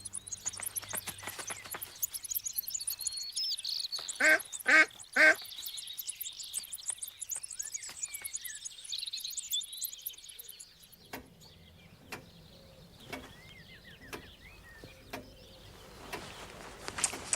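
A duck quacking three times in quick succession about four seconds in, over high twittering birdsong; later come a few faint short ticks.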